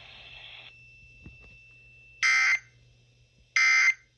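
NOAA Weather Radio SAME digital data tones: two short, harsh bursts about a second and a half apart, the end-of-message code that closes an alert. A faint steady high tone comes before them.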